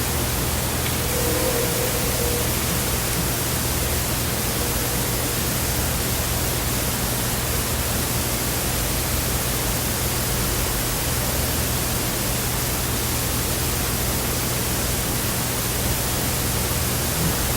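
Steady loud hiss of noise with a low hum underneath, and a faint thin tone that comes and goes briefly about a second in and again a few seconds later.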